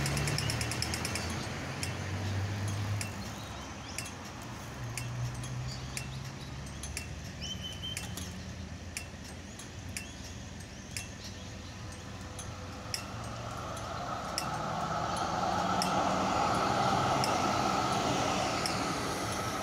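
Street traffic with a Melbourne tram and cars passing close, growing loudest toward the end. Faint sharp ticks recur throughout.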